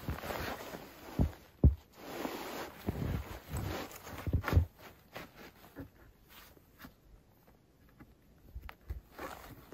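Heavy canvas tarp rustling as it is pulled and draped over a pole, with a few dull thumps in the first half; after that, quieter handling sounds and small clicks.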